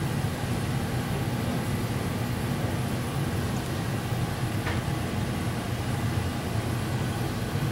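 Steady low rumble with hiss underneath: background room noise on a poor-quality recording, with no speech.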